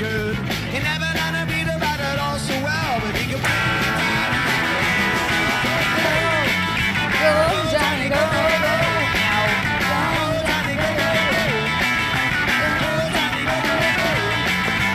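Rock band playing live, with singing over electric guitars.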